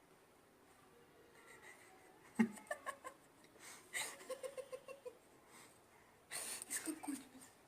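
Baby parrot making short calls and a quick run of about six chattering notes, among clicks and rustling.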